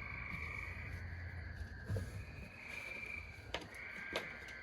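A high, even trill from a calling animal, repeated about three times for roughly a second each, over a low hum, with a few sharp clicks in the second half.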